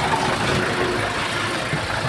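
Heavy diesel engine of earthmoving equipment running steadily, a low, even rumble with no sharp knocks.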